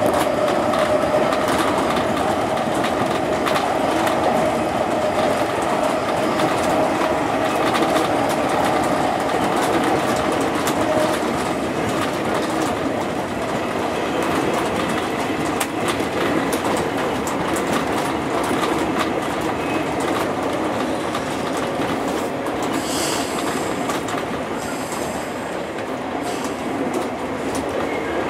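JR East 201 series electric commuter train heard from the driver's cab: steady wheel-and-rail running noise with rapid rail-joint clicks and a motor whine that sinks slightly in pitch and then fades as the train slows. Brief high wheel squeals come twice near the end, as it enters the station.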